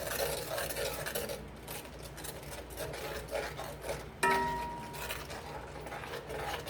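A utensil stirring and scraping the bottom of a pan of sauce in short, irregular strokes, loosening the browned bits. About four seconds in, a sharp metallic clink against the pan rings briefly.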